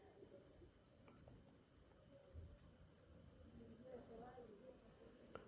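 Near silence with a faint, high chirp from an insect, pulsing rapidly and evenly the whole time.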